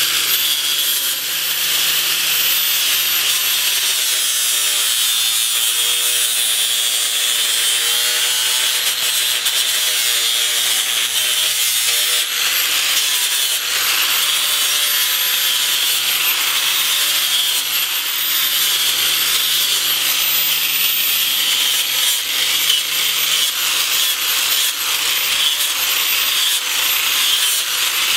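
DeWalt 4.5-inch angle grinder with a flap disc grinding birch wood in a steady continuous grind. Its pitch wavers slightly as the pressure on the wood changes.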